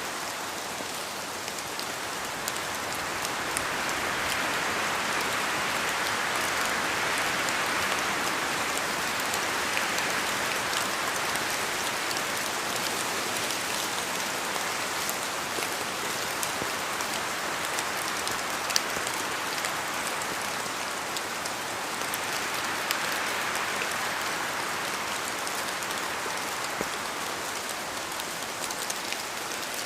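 Steady rain falling, a dense even patter of drops on a surface with scattered sharper drop ticks; the downpour swells a little heavier a few seconds in and again about three quarters of the way through.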